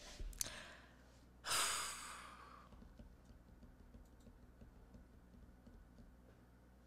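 A person's sigh: one long exhale about a second and a half in, fading over about a second, after a short thump just before it. Faint clicks follow.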